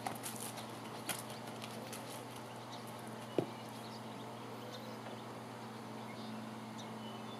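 Donkey hooves stepping on gravel, a few scattered crunches in the first two seconds, then one sharp knock about three and a half seconds in, over a steady low hum.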